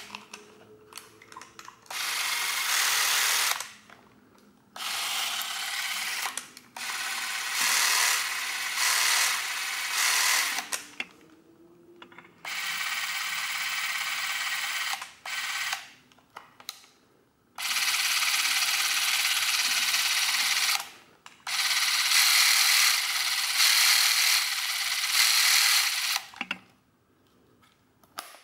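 The small electric motor of a Cosina SSL-7410 Macro Super 8 camera runs in about six separate runs of one and a half to four seconds each as it is switched on and off. Small clicks come between the runs.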